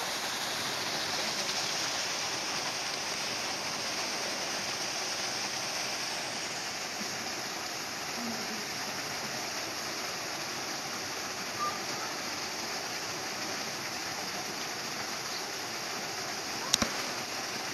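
Steady rushing noise of running water, with a sharp double click near the end.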